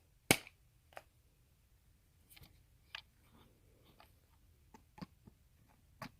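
Scissor blades jabbed and prying into the port of a plastic charger casing: a sharp click just after the start, then scattered lighter clicks and faint scraping.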